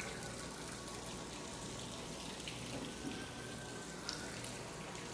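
Faint steady hiss like running water in open-air ambience, with a few soft clicks.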